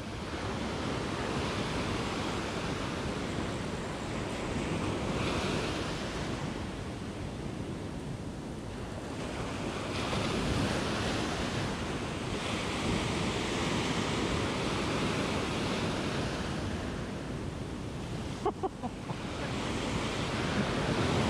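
Ocean surf washing up the beach, the rush of breaking waves and foam over sand swelling and easing as each wave comes in.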